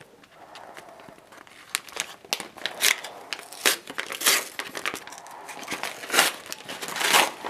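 Manila paper envelope being handled and torn open: irregular rustling, crinkling and short rips, starting about two seconds in and loudest toward the middle and the end.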